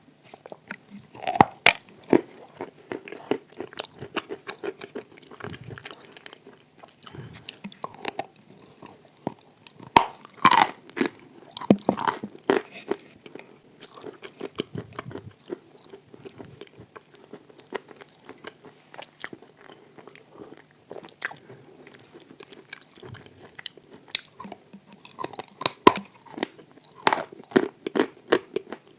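Close-up chewing and crunching of wet chalk coated in clay paste. Crisp crackles run throughout, with louder bursts of crunching bites about a second in, around ten to twelve seconds in, and near the end.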